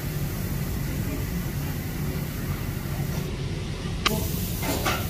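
High-pressure gas wok burner running with a steady low rumble under a wok as strips are stir-fried in hot oil. A metal ladle clanks sharply against the wok about four seconds in, followed by a couple of brief scrapes.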